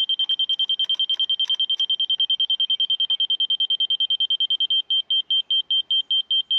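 Laser level receiver on a grade rod beeping with a single high tone. It gives rapid beeps, about ten a second, then changes about three-quarters of the way through to slower beeps, about three a second, as the receiver is moved on the rod. The beep rate tells whether the receiver sits above or below the laser beam while it is being brought onto grade.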